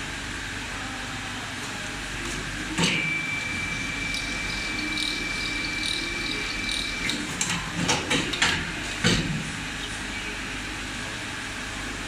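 Automatic blower wheel assembly machine running its cycle over a steady factory hum: a sharp clack about three seconds in starts a steady high whine that holds for about four seconds, then a quick series of clacks and short air hisses from its pneumatic cylinders around eight to nine seconds in.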